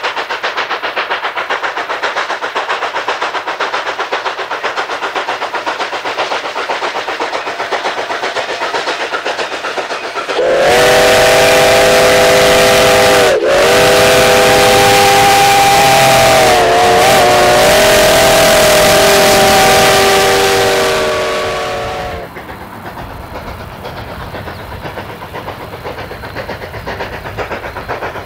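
Narrow-gauge steam locomotive No. 488, a former Denver & Rio Grande Western K-36 2-8-2, working with steady rhythmic exhaust chuffs, then blowing its whistle, a chord of several notes, about ten seconds in: a short blast followed by a long one of about eight seconds that wavers in pitch midway. After the whistle the chuffing carries on, quieter.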